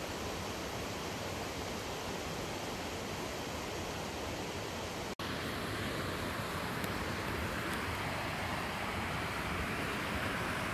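Steady rush of a rocky creek's white water. It breaks off for an instant about halfway through, then carries on a little brighter.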